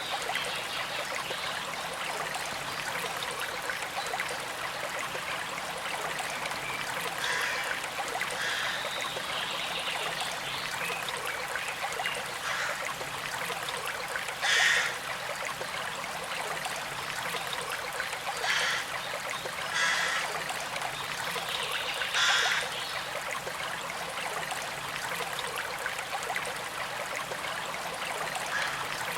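Small creek flowing and trickling steadily, with about half a dozen brief louder moments of water noise.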